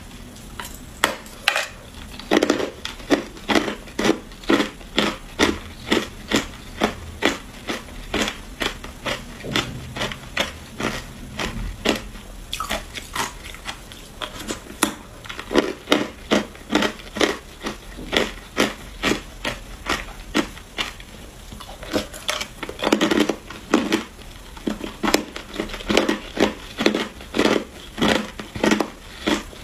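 Hard clear ice being bitten and chewed: a steady run of sharp crunches, about two a second.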